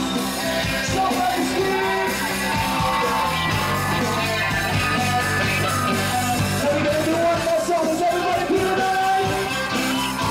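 Live band playing amplified through a PA, with electric guitar, bass guitar and drums and a singer's voice over them.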